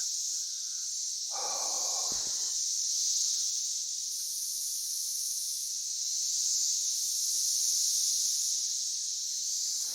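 Steady high-pitched insect chorus in the forest. A second, higher insect buzz comes in twice, for a couple of seconds each time. A person gives a brief soft breath about a second and a half in.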